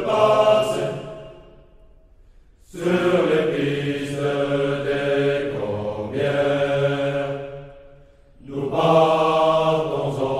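A men's choir sings a slow, chant-like song in long phrases. There is a short pause about two seconds in and another near the end.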